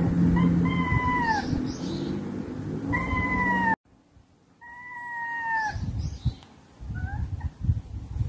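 Cats in a territorial standoff yowling: three long, drawn-out caterwauls, each sliding down in pitch at its end, a threat between a house cat and a strange stray.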